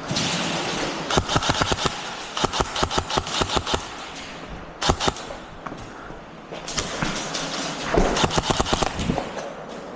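Airsoft rifles firing several rapid full-auto bursts, each a quick run of sharp snapping shots lasting about a second, with short pauses between.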